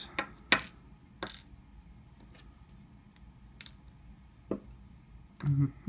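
Small metal lock pins dropping out of a Kwikset-style lock plug with light, sharp clicks onto a pin tray, the loudest about half a second in and a few more scattered after. The clicks come as the lock is being gutted.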